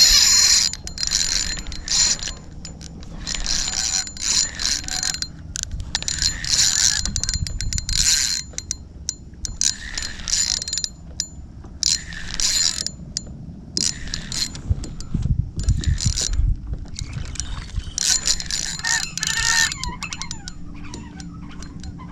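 Spinning reel's drag buzzing in repeated short bursts as a hooked fish pulls line, with a low rumble about two-thirds of the way through.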